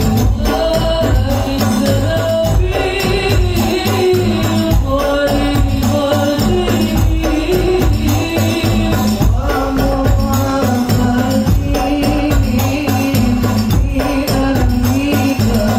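Two men singing an Arabic sholawat, a devotional song praising the Prophet, through microphones and a PA, over continuous hand-drum and tambourine percussion with a heavy bass.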